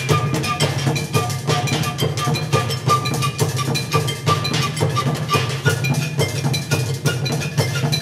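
Percussion ensemble playing instruments made from scrap (plastic buckets, barrels and metal) struck with drumsticks in a fast, dense rhythm. A ringing metallic note is repeated over the drumming through the first two-thirds or so.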